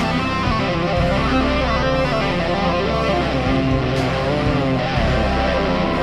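Background music led by electric guitar, with bass.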